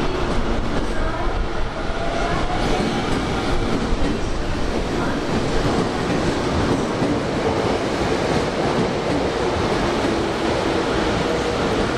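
Yurakucho Line subway train running through an underground station, a steady rumble.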